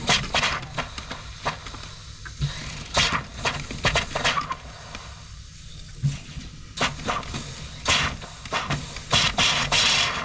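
Water and air spitting and hissing from a cabin faucet in irregular bursts as the newly pressurized lines purge their air, over a low steady hum.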